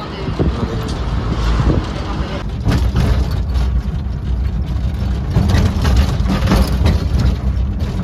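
A moving vehicle's engine and road rumble heard from inside it: a loud, steady low rumble with noise over the top.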